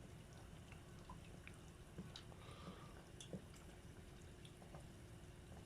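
Croquettes deep-frying in oil in a tempura pot: faint, scattered small pops and crackles over a steady low hum.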